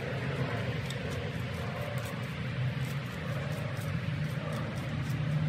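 A steady low engine hum, with faint high ticks repeating a few times a second.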